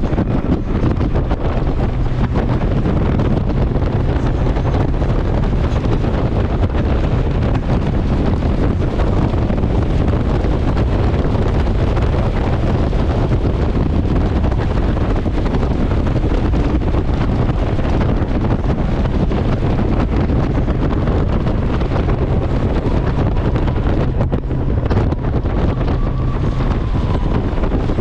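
Steady wind rush on the microphone, mixed with the road and engine noise of a Honda Gold Wing motorcycle cruising at motorway speed.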